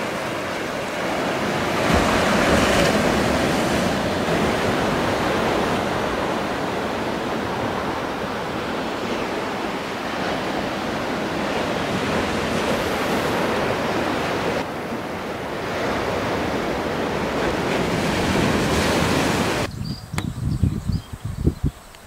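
Sea surf: a steady rushing wash of breaking waves, swelling a little about 2 s in and again near the end. About 20 s in it cuts off abruptly to quieter outdoor sound with a few short low thumps.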